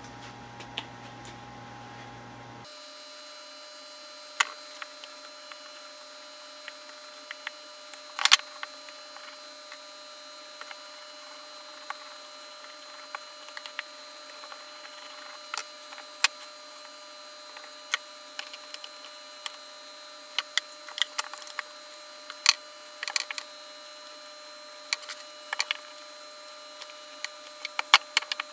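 Scattered light clicks, taps and knocks from handling the wood blocks and gluing and clamping tools, getting busier near the end, over a steady faint electrical hum.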